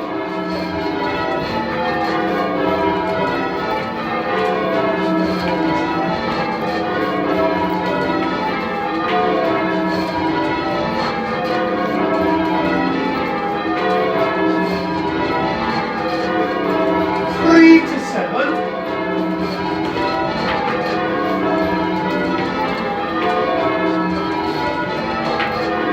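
A ring of ten church bells, tenor 18½ cwt in E, rung full-circle in call changes: the bells strike one after another in an even, continuous cycle of rows, each row in the order the conductor has called.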